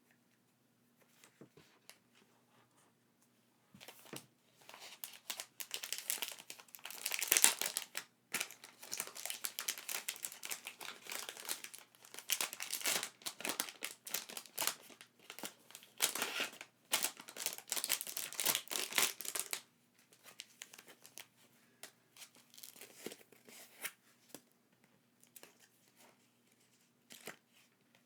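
Packaging being crinkled and torn open. A dense stretch of crackling runs from a few seconds in until about two-thirds of the way through, then eases to faint rustles.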